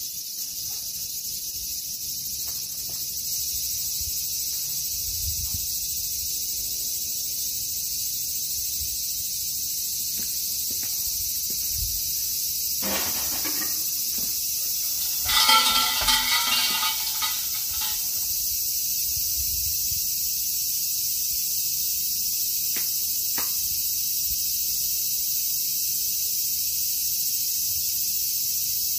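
A steady high insect chorus runs behind everything. About halfway through there is a short rattle, then a shrine's suzu bell jingles for two or three seconds, the loudest sound. About five seconds later come two sharp hand claps, the clapping part of a shrine prayer.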